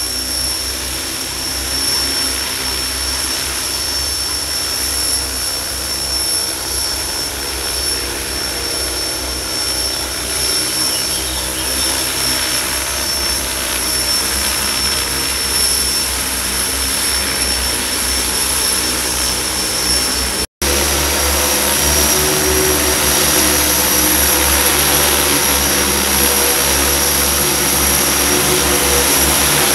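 Large agricultural crop-spraying drone flying and spraying overhead: a steady rotor hum with a thin high whine above it. The sound drops out for an instant about two-thirds through and comes back a little louder.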